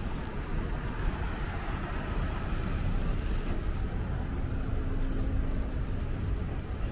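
Road traffic: cars driving past on a city street, a steady mix of tyre and engine noise, with a faint steady hum for a couple of seconds after the midpoint.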